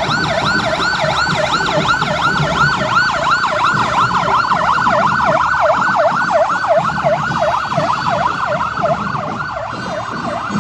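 Electronic vehicle siren in a fast yelp, its pitch sweeping up and down about four times a second.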